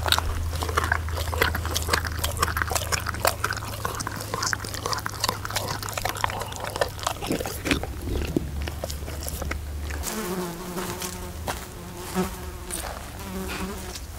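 A large dog chewing raw meat, with a run of wet crunches and clicks. About ten seconds in, this gives way to a fly buzzing close to the microphone, its hum rising and fading as it moves around.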